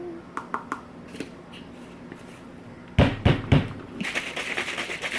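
A few light clicks, then three heavy knocks about three seconds in, followed by a protein shaker bottle being shaken hard, a fast, even rattle that starts about a second before the end.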